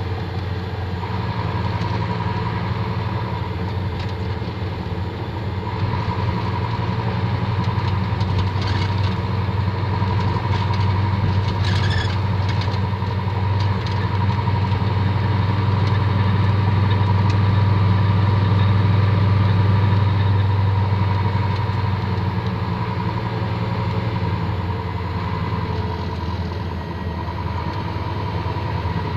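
Scania K310 coach's rear-mounted diesel engine running under load, a steady deep drone that grows louder a little past the middle and then eases off.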